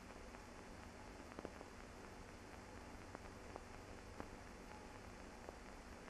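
Near silence: the steady hiss of a silent archival film transfer, with a few faint clicks scattered through it.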